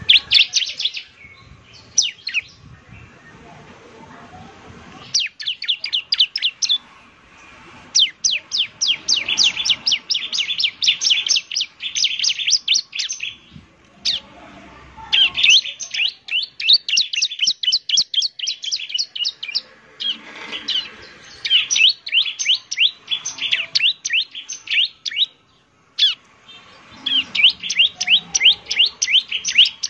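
Bar-winged prinia (ciblek) singing in lively song: phrases of rapid, sharp chirps, several a second, each phrase one to five seconds long with short pauses between.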